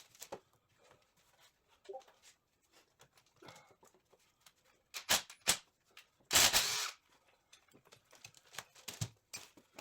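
Hand work on a gearbox at a workbench: scattered light clicks and knocks of tools and parts being handled, with a loud half-second rasping burst about six and a half seconds in.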